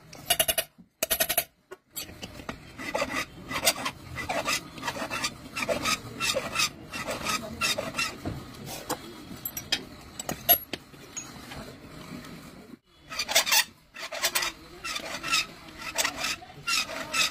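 Repeated rasping strokes of a hand tool working on a metal cylinder head, about two to three strokes a second, broken by two short silences.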